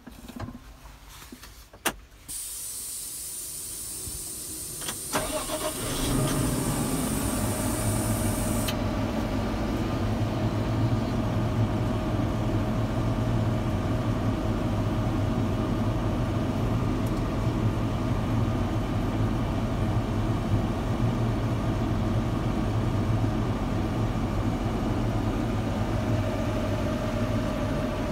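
Fendt 724 tractor started from inside its cab. After a click, a high steady hiss comes on about two seconds in. About six seconds in the six-cylinder diesel starts and settles into a steady idle.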